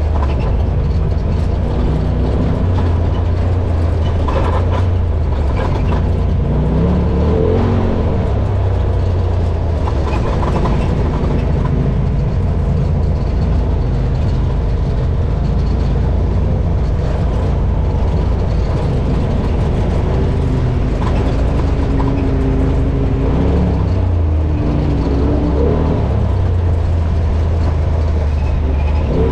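Side-by-side UTV driving along an off-road trail: a steady, heavy engine rumble whose pitch rises and falls a few times as the throttle changes.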